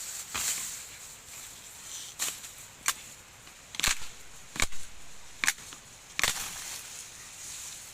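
A series of sharp chopping strikes, about seven, spaced irregularly over a steady high hiss.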